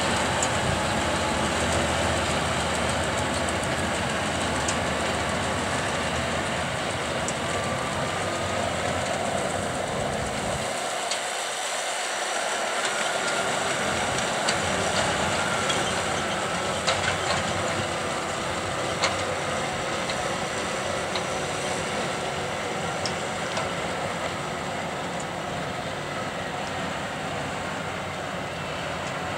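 John Deere tractor engine running steadily as it pulls a John Deere 592 round baler through the hay, with a few sharp clicks in the middle; the sound slowly gets quieter as the rig moves away.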